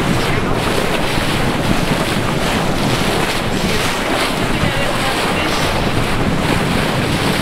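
Steady wind buffeting the microphone over the rush of seawater around a moving boat.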